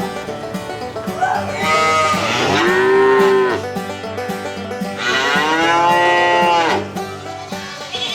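A cow mooing twice, each a long call of about two seconds that rises and then falls in pitch, the second beginning about five seconds in. Light background music plays steadily underneath.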